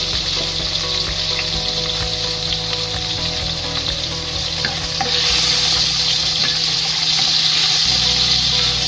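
Cubes of pork fat sizzling in hot oil in a wok as they render down, the sizzle growing louder about five seconds in. A spatula stirs them near the end.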